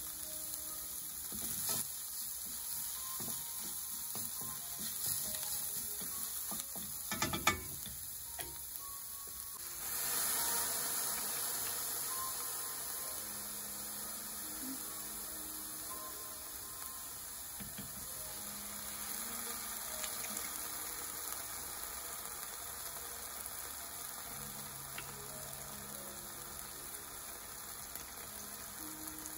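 Chopped garlic, onion, green onions and ginger sizzling in a stainless steel frying pan, with a few sharp knocks of a utensil against the pan about seven seconds in. The sizzle grows louder about ten seconds in, then slowly settles.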